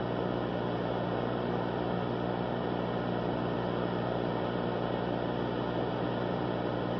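Steady low hum with a layer of hiss, unchanging throughout.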